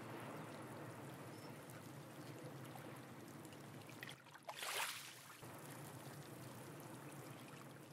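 Seawater washing and trickling among shoreline rocks, with one brief louder splash about halfway through.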